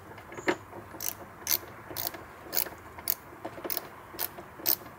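Ratchet clicking about twice a second in short, even strokes, undoing the wheel-arch liner screws.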